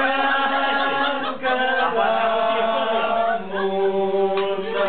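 A group of voices singing a Romanian birthday song together in long, held notes.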